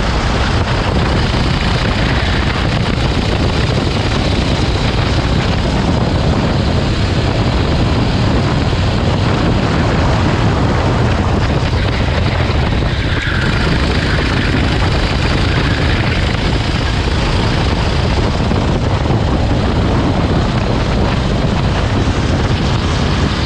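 Rental kart engine running steadily at racing speed, heard onboard, with wind rushing over the microphone.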